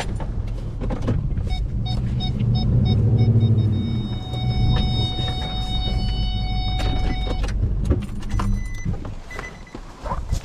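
Pickup truck engine running at low speed as the truck pushes through dry brush, with scraping and crackling of weeds against the body. A run of quick electronic beeps at about four a second comes in early, followed by a steady electronic tone lasting about three seconds.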